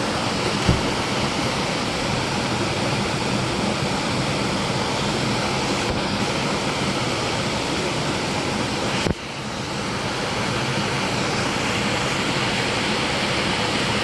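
Small mountain-stream waterfall pouring steadily into a rock plunge pool, a constant rush of water. A brief thump about a second in. About nine seconds in, a sharp click, then the rush drops suddenly and swells back.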